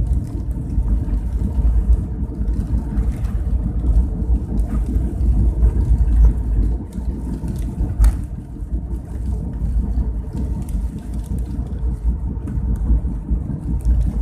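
Steady low rumble of a vehicle driving along a road, with a short sharp click about eight seconds in.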